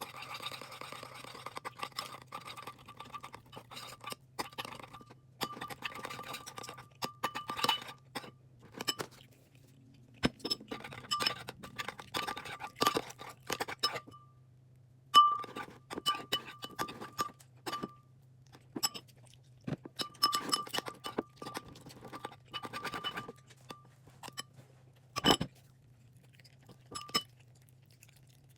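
Slime being stirred in a bowl as glue and activator are mixed: a utensil scrapes and clicks against the bowl in irregular bursts with short pauses.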